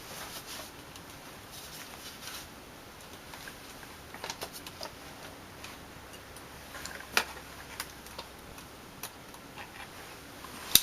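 Scattered small clicks and taps of a screwdriver tightening the hard drive's retaining screw in a computer case, with a sharper click about seven seconds in.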